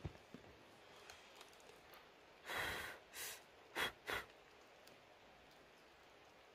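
Hand scooping coconut worms (palm weevil larvae) off a large leaf: a soft brushing rustle about two and a half seconds in, a smaller one after it, then two short rustles a moment later.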